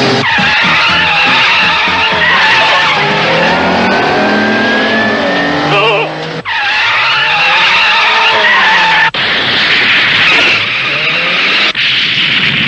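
Animated-soundtrack race car effects: an engine running hard under long, wavering tyre squeals as the car skids. The sound breaks off abruptly three times and starts again.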